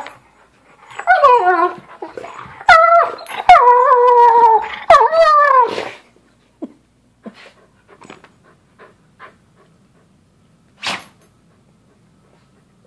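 A dog vocalizing in play: a run of long, pitched, whining calls that bend and slide downward in pitch, about a second to six seconds in. After that only a few faint clicks and one short sharp sound near eleven seconds.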